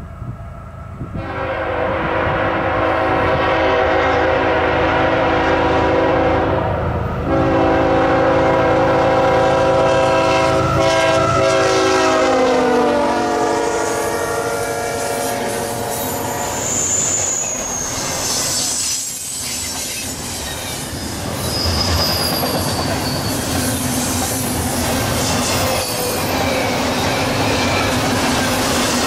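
Freight locomotive air horn sounding two long blasts, the second dropping in pitch as the locomotive passes close by. Then double-stack intermodal well cars rumble and clack past, with a couple of brief high wheel squeals.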